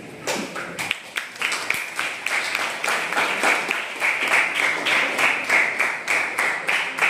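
A group of people clapping in applause, starting about a second in and keeping up a quick, steady clatter of claps.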